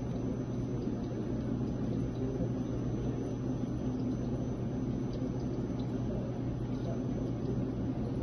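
Steady low mechanical hum with background room noise from café equipment at an espresso bar, unchanging throughout with no distinct events.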